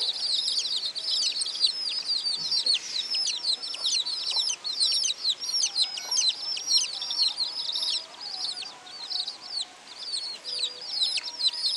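A group of young chicks peeping: many short, high, falling cheeps overlapping in a continuous chorus. It thins out and drops a little in loudness for a couple of seconds near the end, then picks up again.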